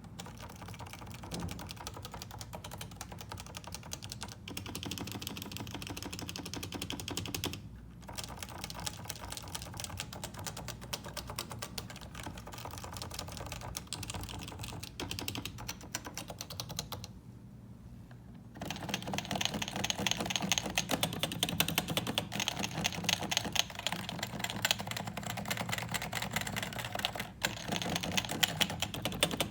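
Continuous fast typing on stock Topre electrostatic capacitive keyboards, a dense stream of keystrokes. It breaks briefly at about 7.5 s and pauses for a second or so around 17 s, then resumes louder and brighter, likely the switch from one board to the other.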